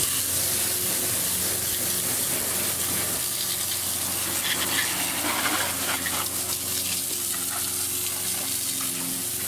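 Water spraying steadily from a garden hose nozzle onto a car engine, a continuous hiss.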